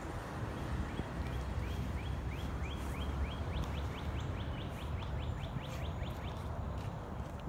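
A songbird singing a long trill of short rising notes that speeds up as it goes and stops about six seconds in, over a steady low rumble.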